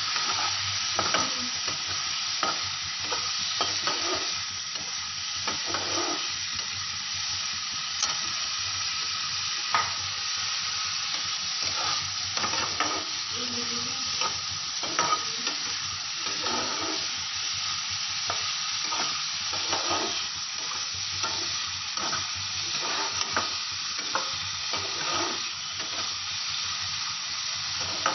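Prawns sizzling in curry gravy in a non-stick frying pan, with a spatula stirring and scraping through them in frequent irregular strokes over the steady frying hiss.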